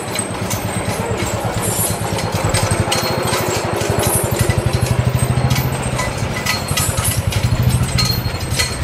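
A small engine running at low revs with a fast, even low putter, growing louder through the middle and again near the end.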